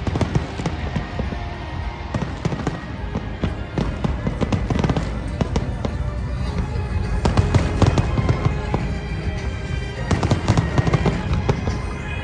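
Fireworks bursting and crackling in quick succession, many reports overlapping, with music playing underneath.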